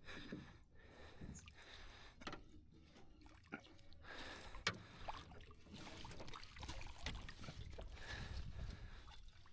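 Faint water sloshing and lapping around a small boat, with a few light knocks and splashes while a fishing line is being handled.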